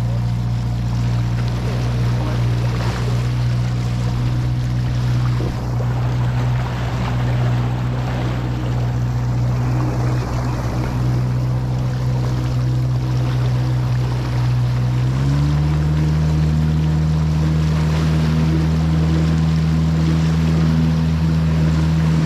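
Jet-drive outboard motor of a Bass Tracker boat running steadily under a rush of water and wind. About fifteen seconds in it picks up to a higher, steady pitch as it is throttled up.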